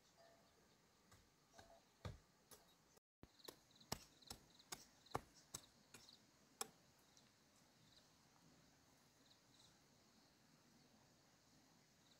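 A run of about ten sharp knocks or taps, unevenly spaced over some four seconds, over a faint background of small high chirps.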